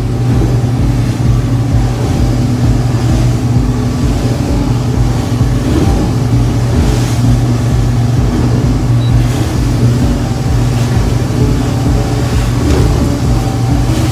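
Motorboat engine running steadily at speed, a loud low drone, with water rushing along the hull through choppy waves.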